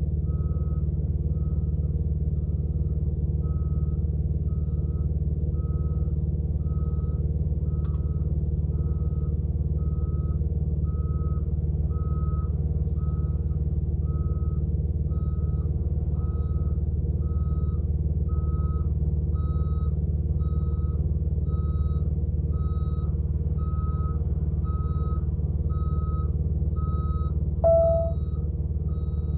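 Semi-truck backup alarm beeping steadily about once a second as a Super B-train tanker reverses, over the steady low drone of an idling truck engine. Near the end a brief, louder, lower tone sounds once.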